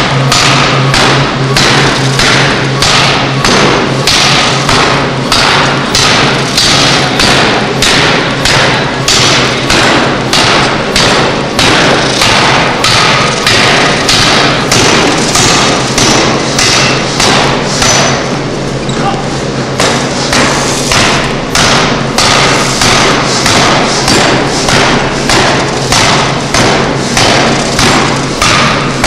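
Pneumatic forging hammer striking a red-hot bar in a steady, rapid rhythm of heavy blows, roughly one and a half a second, with a brief lull about two-thirds of the way through.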